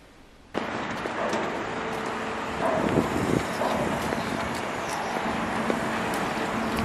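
Outdoor street noise: a steady traffic hum with faint light clicks and taps, starting abruptly about half a second in after a short quiet stretch.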